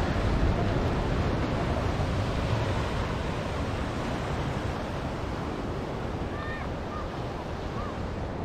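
Ocean surf washing onto a beach: a steady noise of breaking waves with some wind, fading slightly toward the end. A few faint short chirps come in near the end.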